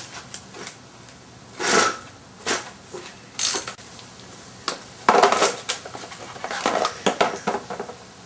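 Clinks and clatter of metal tools and a hard plastic tool case being handled: a few separate knocks in the first few seconds, then a busy run of small metallic clinks from about five seconds in.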